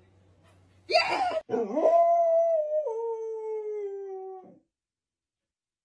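Puppy howling: a short rough sound about a second in, then one long howl that holds its pitch and steps down lower about halfway through, stopping about four and a half seconds in.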